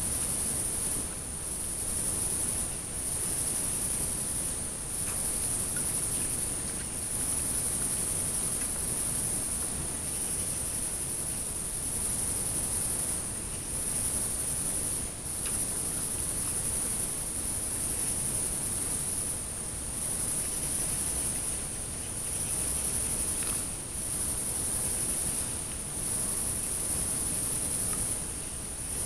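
High-pitched trilling of night-singing crickets, in long runs broken by short pauses about every two seconds, over a faint low hiss.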